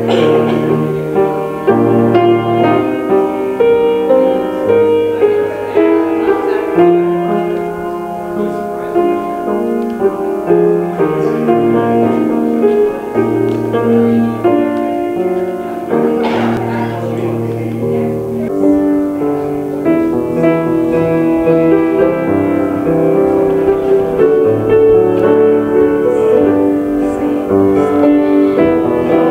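Instrumental keyboard music in slow, held chords over a moving bass line: a closing postlude at the end of a church service.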